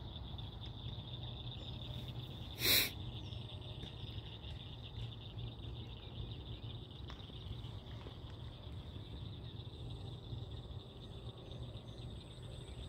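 Evening insect chorus: a steady, high-pitched chirring over a low steady hum. A single short, loud sound breaks in about three seconds in.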